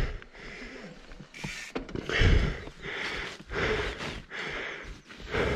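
A mountain biker breathing hard and fast while pedalling uphill, a breath roughly every 0.7 seconds, out of breath from the climb.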